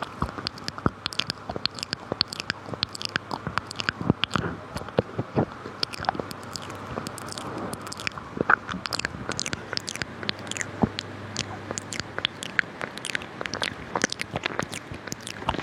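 Close-miked ASMR mouth sounds: rapid, irregular wet clicks and smacks of the lips and tongue, several a second.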